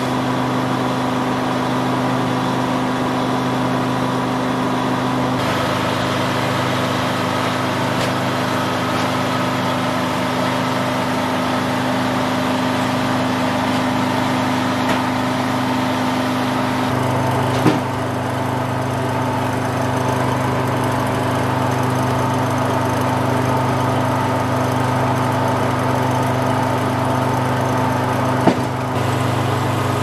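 Detroit Diesel engine running steadily as the power unit of a Frick circular sawmill, an even low drone. Two sharp knocks sound over it, one a little past halfway and one near the end.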